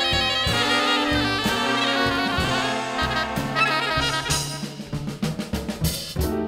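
Jazz band playing: trumpet and saxophone carry the horn lines over drum kit and upright bass, with a busier run of drum hits in the second half.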